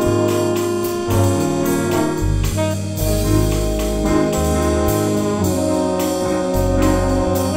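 Instrumental passage of a jazz arrangement of a samba: saxophone, trombone and flugelhorn play held chords together over piano, electric bass and drums.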